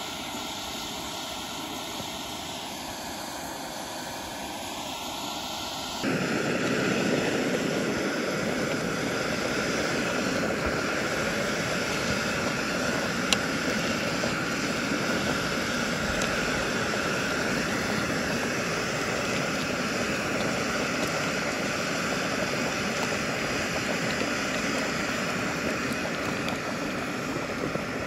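Steady roar of an outdoor gas burner under a large pot of boiling soup, suddenly louder about six seconds in, with one sharp click near the middle.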